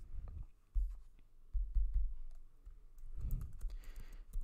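Typing on a computer keyboard: a run of irregular key clicks as a short phrase is entered, mixed with several dull low thumps.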